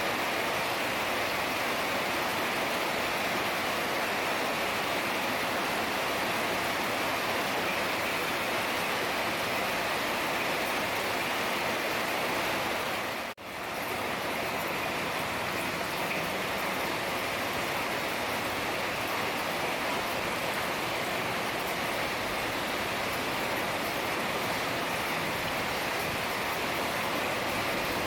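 Heavy rain falling steadily, a dense continuous hiss, with one brief drop-out about halfway through.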